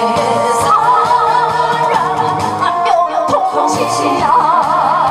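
A woman singing into a microphone over musical accompaniment, holding long notes with a wide vibrato about a second in and again about four seconds in.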